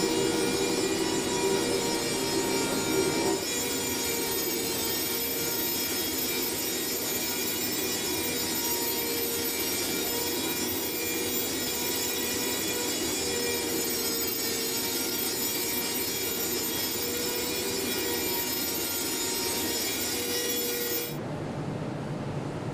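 Factory machinery running: a steady rasping, grinding-like noise with several fixed whining tones. The sound shifts about three seconds in and cuts abruptly to a lower hum near the end.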